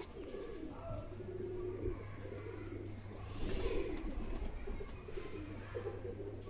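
Domestic pigeons cooing, one low coo after another. A brief rustle comes about halfway through.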